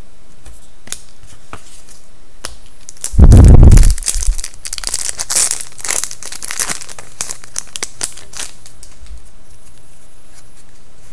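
A trading-card pack wrapper being torn open and crinkled, with a loud, short burst about three seconds in followed by several seconds of crackling as the wrapper is handled.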